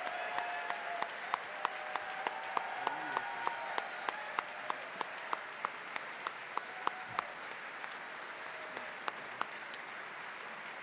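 Audience applauding, with one pair of hands clapping close to the microphone in sharp, even claps about three a second that stop about seven seconds in while the applause carries on.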